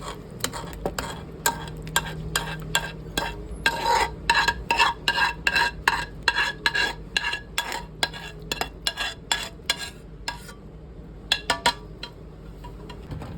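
A metal utensil stirring and clanking against a metal pan or bowl as pasta is mixed, in quick ringing strikes several times a second. It stops after about ten seconds, then a few more strikes near the end.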